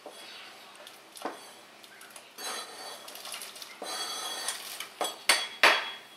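Chopped celery scraped off a cutting board into a stainless steel pot of boiling water: a scraping, rustling run in the middle with light metal clinks against the pot, and two sharp knocks near the end as the board strikes the pot.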